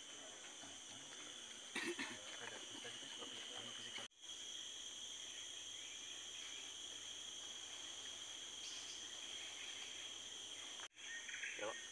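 Steady high-pitched chorus of rainforest insects, several shrill tones held together without a break, with a short louder noise about two seconds in. The chorus drops out for an instant twice.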